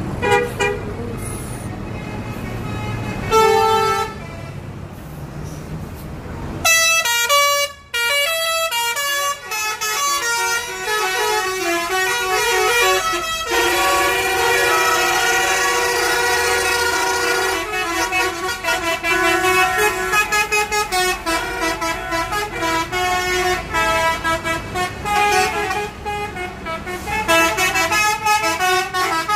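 Coach buses in a convoy sounding their horns. Under a low engine rumble there are two short horn blasts. From about seven seconds in, multi-tone air horns sound almost without a break, in quickly changing notes.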